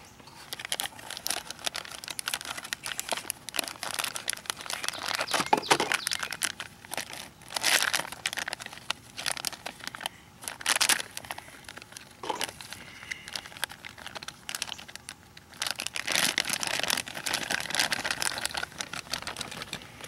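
Clear plastic parts bag crinkling and rustling in uneven bursts as a new vehicle speed sensor is unwrapped from it.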